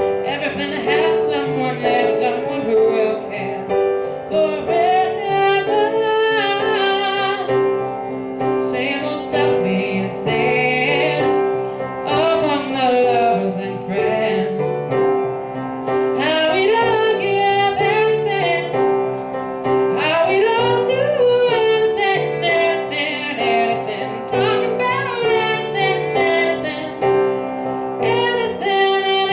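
A young woman singing an original pop song live, over piano accompaniment.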